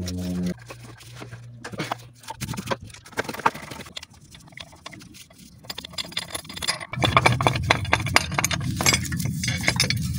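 Mechanic's tools at work on a car engine: a power tool's steady whine stops about half a second in, followed by metal tools clinking and tapping against engine parts, becoming a denser run of clicking and clattering from about seven seconds.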